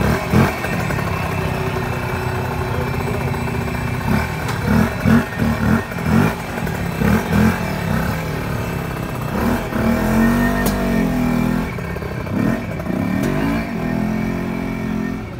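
Motorcycle engine running at idle and revved in a series of quick, sharp throttle blips, then pulled away with the revs rising and settling near the end.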